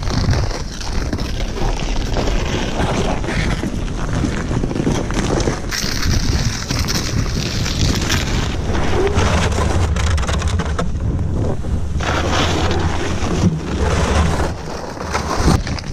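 Strong storm wind buffeting the microphone, a heavy low rumble that rises and falls in gusts.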